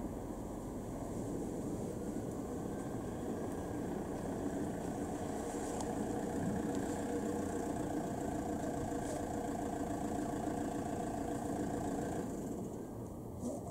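Steady engine hum, like a vehicle idling, that grows a little louder and then cuts off about twelve seconds in, with a couple of faint distant pops.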